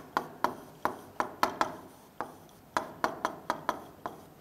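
Marker pen writing on a whiteboard: a run of short, irregular taps, about three or four a second, as the strokes of a word are drawn.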